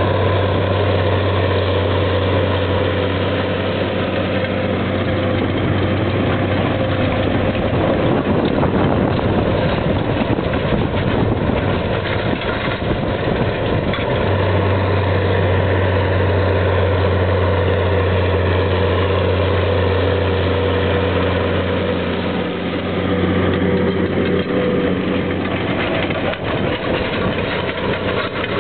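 Big Versatile four-wheel-drive tractor's diesel engine running steadily under load as it pulls a Väderstad TopDown 500 cultivator-seeder through stubble. It is a steady low drone that drops away for a few seconds near the middle.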